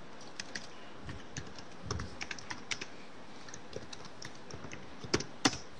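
Typing on a computer keyboard: irregular key clicks a few times a second, with two louder key strikes about five seconds in.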